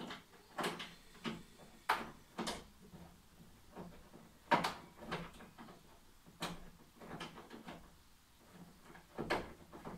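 Irregular metal clicks and knocks from a hand tool fastening a bolt on a wall bed's metal frame, about a dozen short strokes with pauses between them.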